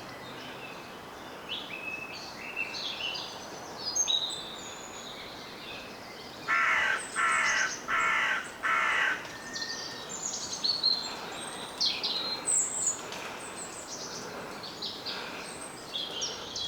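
Several small songbirds singing and chirping, with a crow cawing four times in quick succession about midway.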